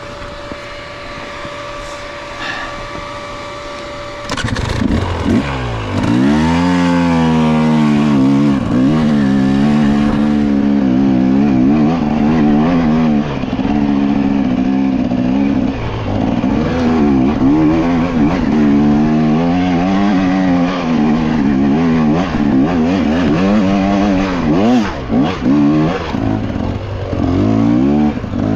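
Off-road dirt bike engine running hard. It revs up and down again and again as the throttle is worked on a slow, technical trail, and gets louder about four seconds in.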